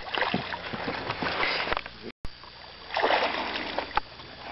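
A hooked fish thrashing and splashing at the water's surface beside a boat, then more splashing about three seconds in as a landing net is dipped into the water. The sound cuts out briefly just after two seconds in.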